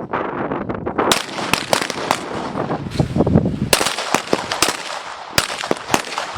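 M17 9 mm pistols firing on a range, many sharp shots at an irregular pace, some overlapping, as several shooters fire at once.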